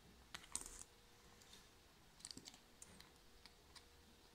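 Faint light clicks and ticks of a wristwatch's metal screw-down caseback being handled and set back onto the watch case, in small clusters, the first just under a second in and another a little over two seconds in.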